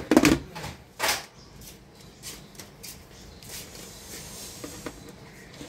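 Handling sounds from a digital multimeter and its test leads being moved on the workbench: a sharp knock about a second in, then scattered light clicks and rustles.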